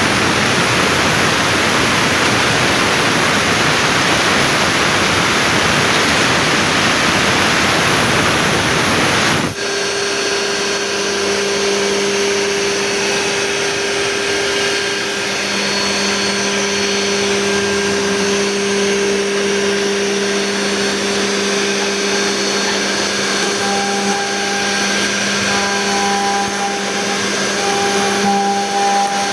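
CNC router spindle cutting a lock or hinge pocket in a wooden door: a loud, dense machining noise that stops abruptly about nine seconds in. A steadier machine hum with a few held tones follows, and a short tone starts pulsing on and off near the end.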